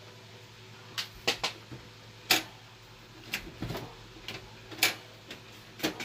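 A series of about seven sharp, irregular clicks and knocks from a desktop PC's video cable and connectors being handled. The loudest come about two seconds in and near five seconds, over a faint steady hum.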